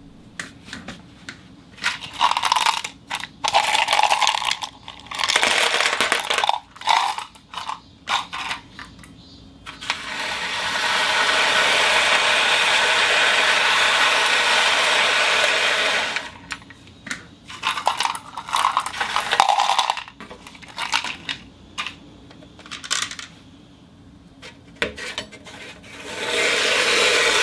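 Glass marbles rolling and clinking on a spinning turntable: bursts of sharp clicks and knocks alternate with a steady rolling rush, which sets in about ten seconds in, stops near the sixteen-second mark and returns near the end.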